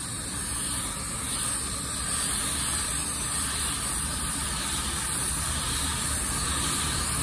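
Iwata spray gun fed at 20 PSI through a regulator, spraying waterborne basecoat: a steady hiss of compressed air and atomised paint.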